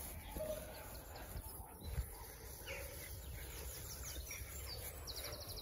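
Quiet outdoor ambience of small birds calling faintly, short chirps with a quick trill near the end, over a steady low rumble on the microphone.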